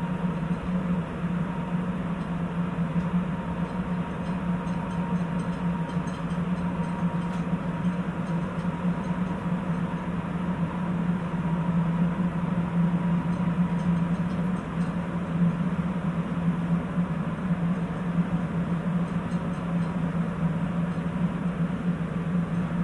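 Sapporo Municipal Subway Tozai Line 8000-series train running steadily between stations, heard from inside the car: the even rolling hum of a rubber-tyred metro, with a faint steady high tone over it.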